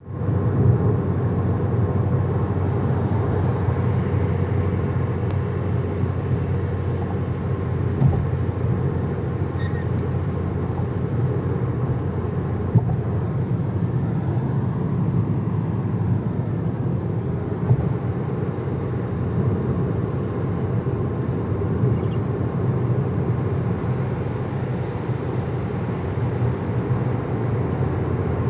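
Steady road and engine rumble heard from inside a moving car's cabin at highway speed, with a few faint knocks.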